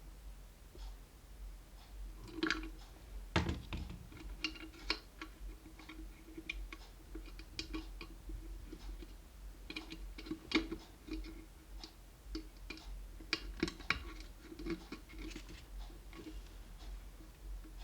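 Irregular small clicks, taps and scrapes of electric-kettle parts being handled and fitted back together, with a few louder knocks, over a faint steady hum.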